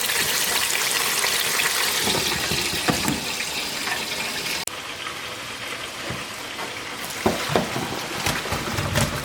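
Water running steadily from a kitchen tap, cutting off suddenly about halfway through; then a quieter hiss with a few sharp knocks and clunks.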